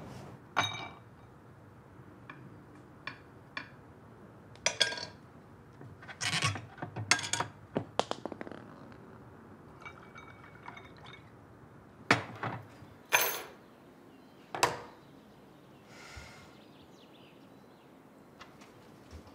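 Scattered short clinks and knocks of things being handled, glass among them, with a cluster of quick clinks about six to eight seconds in and a few louder knocks around twelve to fifteen seconds in.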